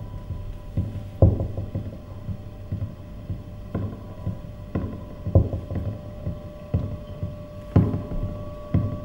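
Sparse ambient music: a steady low hum under irregular deep thumps, about eight of them, with two faint held tones above.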